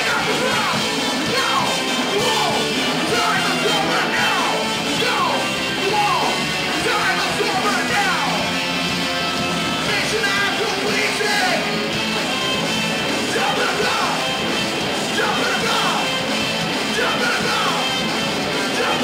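Live ska-core band playing a loud, fast song: electric guitars, bass and drums with a singer's vocals over them.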